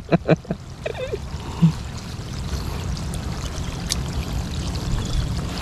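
Steady rushing and trickling of shallow sea water, with a low rumble underneath and a few short voice sounds at the start.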